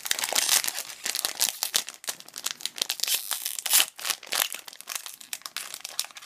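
Plastic Magic: The Gathering booster pack wrapper crinkling and tearing as a pack is opened by hand, a dense run of quick crackles and rips.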